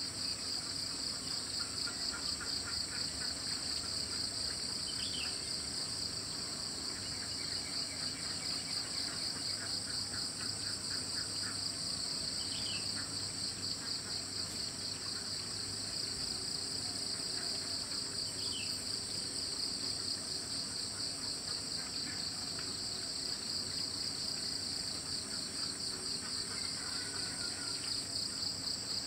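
Dense, steady chorus of insects trilling in a high, fast pulse, with a few short falling bird calls.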